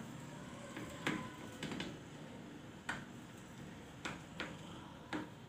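A large knife scoring lines into peanut-jaggery chikki in a steel tray, the blade knocking against the tray in a handful of sharp clicks, about a second apart.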